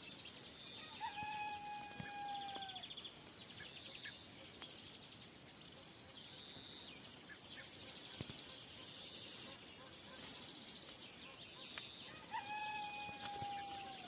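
Faint chirping of goldfinch chicks. Twice, once near the start and once near the end, a different long held tone of about two seconds sounds, nearly level and slightly falling.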